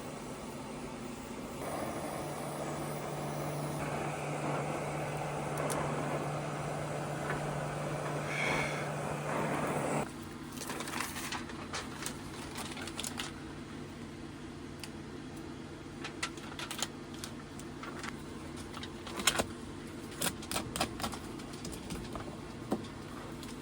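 Scattered clicks and knocks of hand tools and metal parts being handled during an air-conditioning coil installation, over a steady low hum. Before them, a louder rushing noise cuts off suddenly about ten seconds in.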